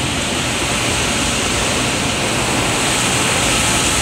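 Automatic car wash spraying water and soap foam onto the car, heard from inside the cabin as a steady rushing hiss that grows slightly louder.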